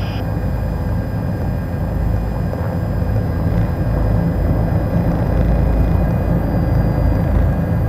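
Bell 407GXi single-turbine helicopter in a low hover, moving sideways. The main rotor makes a heavy, steady low drone, and thin steady turbine and gearbox whines sit above it.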